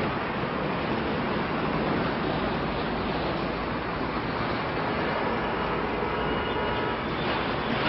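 Jet engines of a J-20 stealth fighter heard from far across the airfield as a steady rush of noise, with a faint thin whine coming in about five seconds in.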